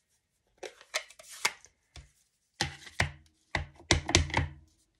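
Sharp plastic taps and clacks in several quick clusters, from an ink pad case being opened and handled and a clear acrylic-block rubber stamp being tapped onto the ink pad on a tabletop.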